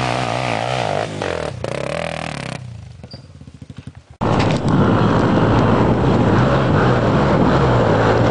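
Dirt bike engine revving with a wavering pitch, then dropping away to a quiet, regular putter. About four seconds in, an abrupt cut brings a louder, steady dirt bike engine with a rush of noise over it.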